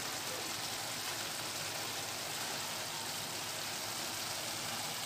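Ground pork with diced carrots and potatoes sizzling gently in a wok: a steady, even hiss.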